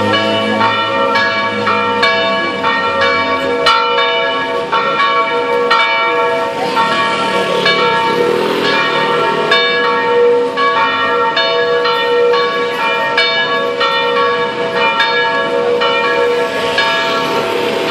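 Two cast church bells, electrically swung on wooden headstocks, ringing together in a plenum: a continuous run of overlapping clapper strikes, their tones ringing on between strokes. It is the plenum rung half an hour before Sunday evening Mass.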